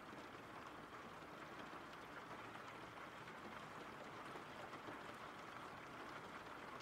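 Faint, steady rain: an even soft hiss of rainfall with a few light drop ticks.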